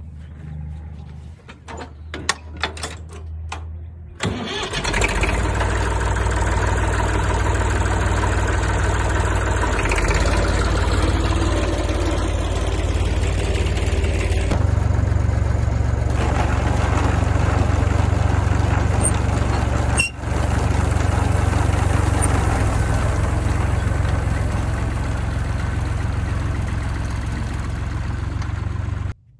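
Massey Ferguson 50 tractor engine: a few knocks, then the engine catches about four seconds in and runs steadily at working speed.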